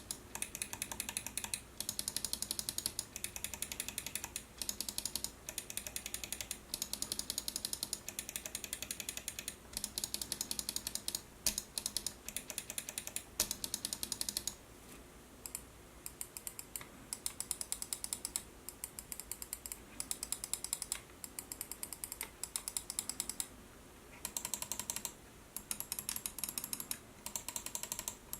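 Roccat Kone Pure Owl-Eye gaming mouse buttons clicked rapidly, in runs of about a second with short pauses between them.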